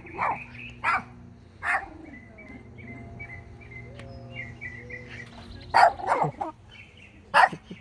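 Small dog barking in short, sharp yaps: three spaced barks in the first two seconds, then a quick flurry of barks near the end.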